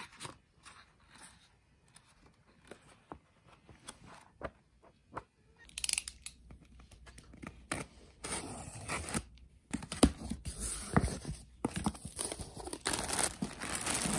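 Packing tape on a cardboard parcel being slit with a box cutter and torn open, in several rasping strokes, then the cardboard flaps and plastic garment bag rustling and crinkling. The first few seconds hold only faint taps and rustles from books being handled.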